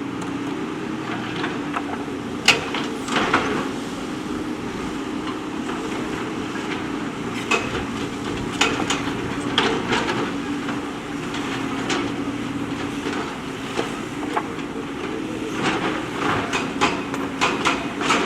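JCB backhoe loader's diesel engine running steadily, with sharp clanks and knocks of the bucket working among stones at irregular intervals, several in quick succession near the end.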